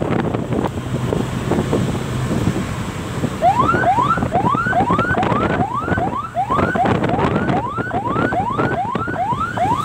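Road and wind noise inside a moving car. About three seconds in, an ambulance siren starts: a quick rising yelp, repeated about two and a half times a second.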